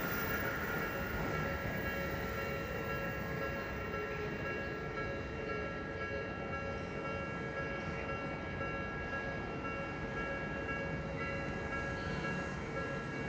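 Japanese railway level crossing alarm ringing, a set of steady high electronic tones, over the rumble of a passing train.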